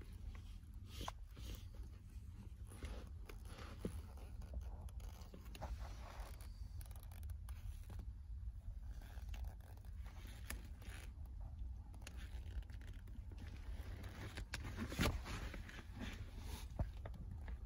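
Faint, scattered scrapes and creaks of leather-soled loafers shifting on a ribbed rubber floor mat, over a low steady rumble, with a couple of sharper scuffs near the end.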